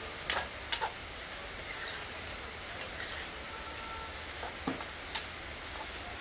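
A metal spatula clinking and scraping against a metal wok: a handful of sharp clinks, two early on and two about five seconds in, over a steady low hum.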